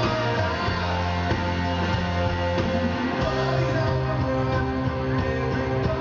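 Live rock band playing, with bass guitar and electric guitars; the bass moves to a new note about three seconds in.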